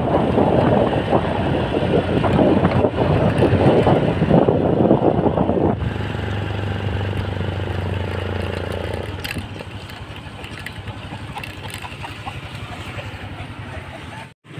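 Wind buffeting the microphone over a Honda scooter's engine while riding. The sound is loud for about six seconds, then drops to a quieter, steady engine hum, and cuts off abruptly just before the end.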